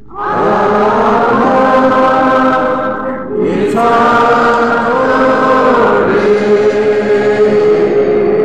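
Church congregation singing a hymn together in long held notes, with a short break between phrases about three seconds in.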